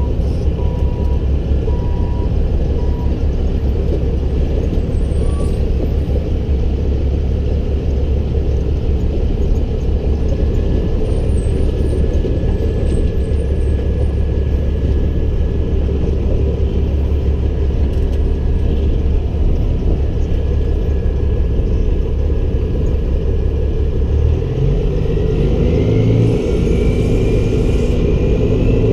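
Peterbilt 388 semi truck's diesel engine running steadily under way. Near the end the engine note climbs as it revs up, with a rising whine above it.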